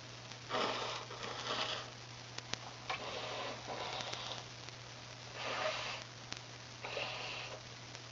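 A person sniffing through the nose: about six short, noisy sniffs, several coming in quick pairs.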